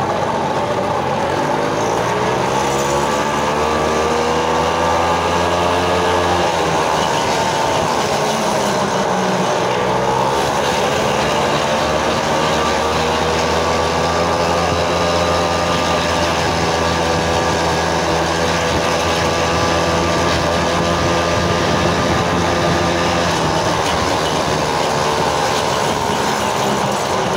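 Small moped engine running while riding, its pitch climbing as it speeds up, dropping about six seconds in, then rising again and holding fairly steady before easing off near the end.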